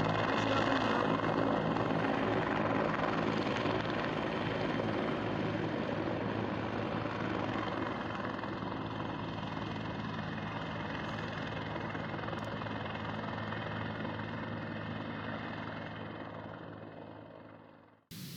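Helicopter running steadily, its rotor and engine giving a constant drone that fades out near the end.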